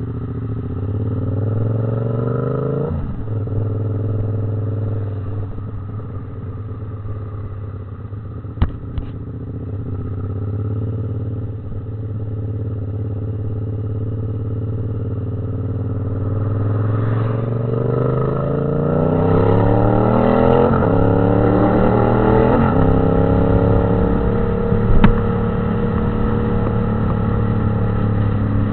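Yamaha MT-07 parallel-twin engine running under way. It revs up and drops back near the start, holds a steady note for a long stretch, then accelerates through several gear changes with rising pitch and drops, and ends at a steady note. There is a sharp click about a third of the way in and another near the end.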